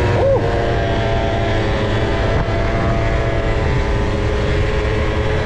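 A 50cc scooter engine running steadily under the rider, with low wind rumble on the microphone. A brief rising-and-falling chirp comes about a quarter second in.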